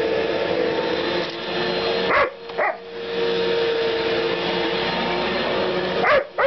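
Electric sweeper running with a steady hum while a dog barks at it in short, sharp yips, twice about two seconds in and twice near the end.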